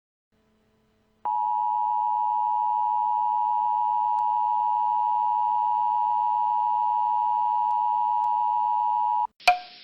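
Emergency Alert System attention tone: one steady, high-pitched tone held for about eight seconds, starting about a second in and cutting off sharply, followed by a brief click. It signals that an emergency warning message is about to be read.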